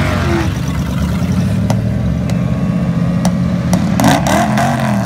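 Big-block Chevy V8 in a lifted mud truck idling loudly, with a few sharp clicks. It briefly revs up and back down about four seconds in.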